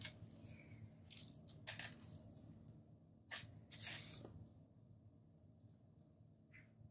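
Thin clear plastic sheet rustling and crinkling in a few short bursts as it is laid over a paper planner page and smoothed flat by hand; the loudest rustle comes about four seconds in.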